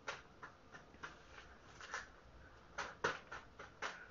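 Clear plastic punched sheet protector crinkling and rustling irregularly as it is handled while tempera paint is squeezed into it, with a few sharper crackles about three seconds in.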